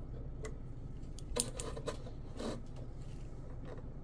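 A handful of light clicks and taps from small metal hardware being handled as a drive coupler is fitted onto a shaft, the loudest about a second and a half in, over a low steady hum.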